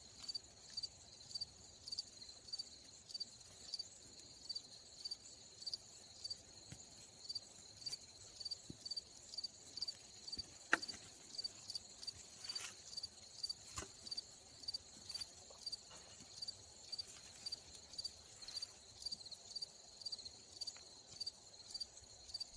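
Cricket chirping steadily in an even rhythm of about two high chirps a second. A few sharp clicks sound over it, the loudest about eleven seconds in.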